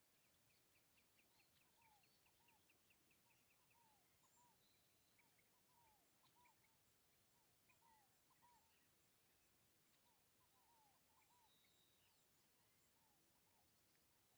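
Faint birdsong from several birds: short down-curving notes repeated again and again, with a quick run of ticks in the first couple of seconds and a thin series of high pips.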